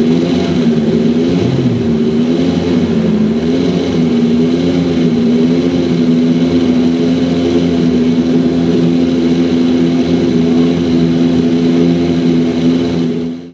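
Formula Renault 2.0 single-seater's 2.0-litre four-cylinder racing engine running steadily while it is warmed up. Its pitch wavers slightly for the first few seconds, then holds steady.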